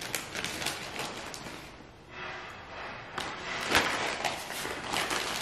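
Plastic bags of shredded cheese crinkling and rustling as the cheese is shaken and sprinkled out by hand, in quick irregular crackles.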